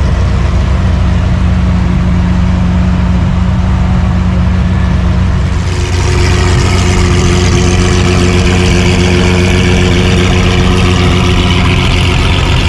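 Loud car engine running steadily, low and deep; about six seconds in a brighter, higher layer of engine sound joins it.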